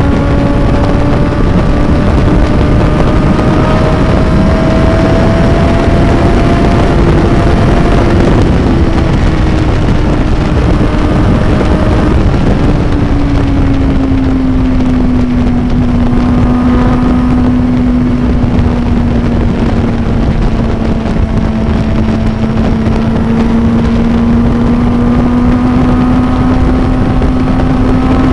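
Suzuki sport motorcycle's inline-four engine running steadily at highway speed, its pitch slowly easing down about halfway through and climbing again near the end, with heavy wind rushing over the microphone.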